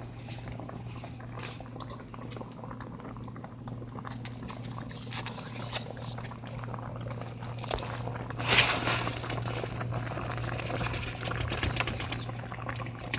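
Pot of okra soup simmering on the stove, bubbling and crackling with many small pops over a steady low hum. A louder noisy burst comes about eight and a half seconds in.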